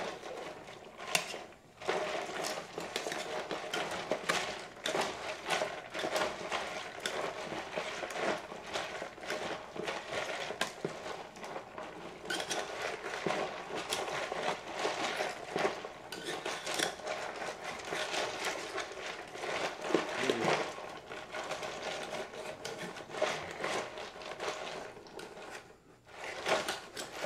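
A spoon scraping half-frozen ice cream off the inside walls of its container, a steady run of scrapes and clinks as the frozen layer stuck to the sides is loosened.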